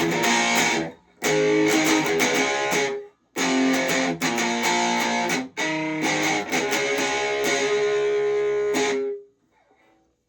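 Stratocaster electric guitar on its bridge humbucker, played through an amp with distortion on: chords and notes in four short phrases with brief breaks between them. The last phrase is held and then stops about a second before the end.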